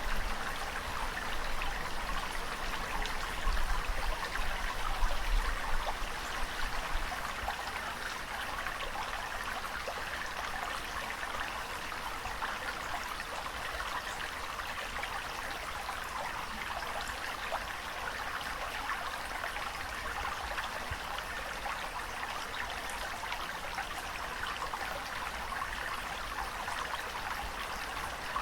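Steady trickling, rushing water with no pitched sounds, with a low rumble under it that is strongest in the first six seconds.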